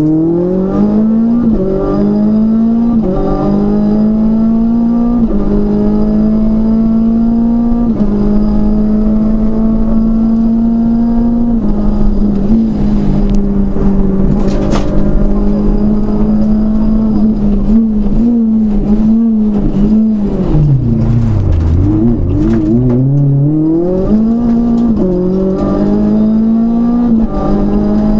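Inside the cabin of a Renault Clio RS rally car, its two-litre four-cylinder engine revving hard through the gears, the pitch climbing and dropping back with each upshift. It holds high revs for a long stretch, then falls away sharply under braking and downshifts around twenty seconds in, before climbing through the gears again.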